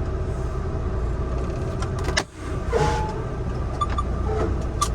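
Semi-truck diesel engine running steadily with a low rumble, broken by a sudden brief dropout about two seconds in, with a few small clicks later.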